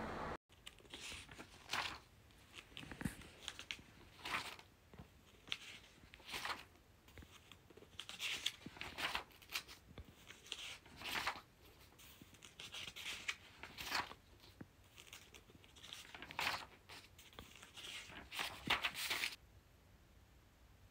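Paper pages of a spiral notebook rustling as they are handled and turned, in irregular short rustles about once a second, cutting off suddenly near the end.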